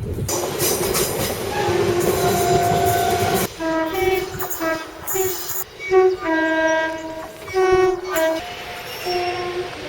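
A train running past with loud wheel and body rumble, a horn note coming in partway through. It then gives way abruptly to a two-tone train horn sounded in a quick run of short high and low blasts, with one longer low note in the middle.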